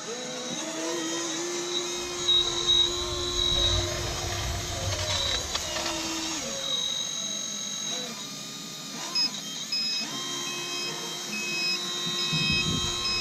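Electric motor of a radio-controlled truck whining, its pitch dropping and then rising again as it slows and speeds up. Wind rumbles on the microphone in gusts.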